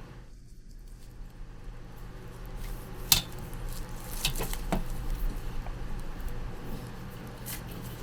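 A few sharp clinks and knocks of small hard objects, like dishes or utensils being handled, over a low steady hum; the loudest clink comes about three seconds in.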